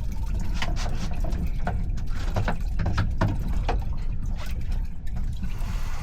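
Water sloshing and slapping against a boat's hull in short, irregular splashes, over a steady low rumble of wind on the microphone.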